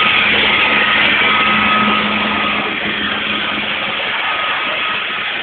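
Ride-on floor scrubber-dryer running as it cleans paving: a steady whirring hiss from its motors with a faint high whine, and a low hum that drops away about four seconds in.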